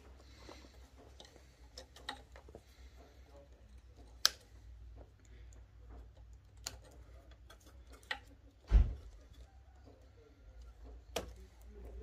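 Hand work on car wiring: scattered sharp clicks and taps from handling wires and insulated crimp connectors and a crimping tool, with one dull thump about two-thirds of the way through.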